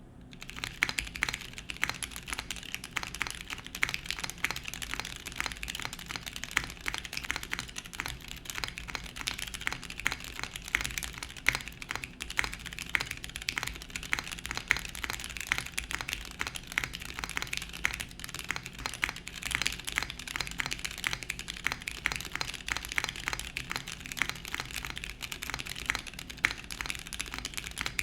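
Continuous fast typing on a DNworks Seven 60% mechanical keyboard: stickered Cherry MX Clear tactile switches on a polycarbonate plate in a dual O-ring mount, with TX stabilizers. A dense stream of keystroke clacks begins about half a second in.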